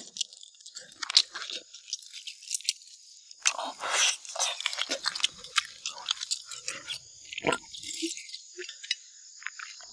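Close-up eating sounds: crunching and chewing as cartilage and meat are gnawed off braised spicy beef spine bones, with many small irregular clicks and a few denser stretches of crunching.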